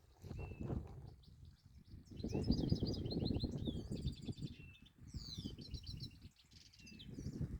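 A songbird sings two quick trilled phrases of rapidly repeated notes, starting about two seconds in, with a short chirp near the start. Underneath is a low, uneven rush of running water.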